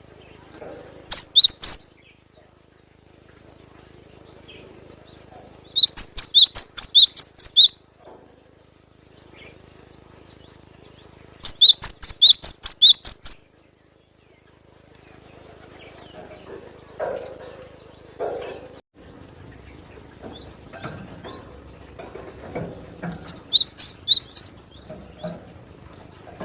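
Cinereous tit (gelatik batu) singing loud bursts of rapid, sharp, high notes, four bursts of a second or two each with pauses between.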